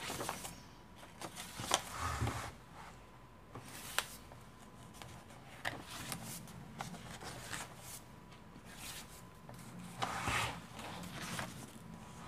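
Paper pages of a handmade journal being turned by hand: soft rustles and light taps at irregular moments, a little louder about ten seconds in.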